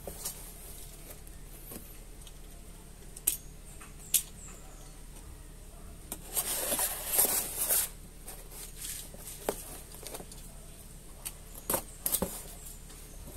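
Cardboard shipping box being opened with a utility knife: one scratchy stretch of about a second and a half a little past the middle as the blade slits the packing tape, with scattered knocks and scrapes of the box being handled.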